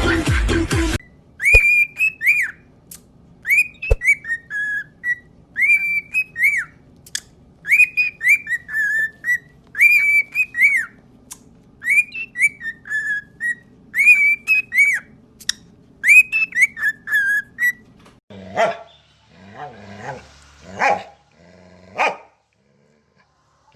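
A dog whining in many short, high-pitched calls, each rising and falling, coming in quick groups of two to four, then a few short, rougher barks near the end.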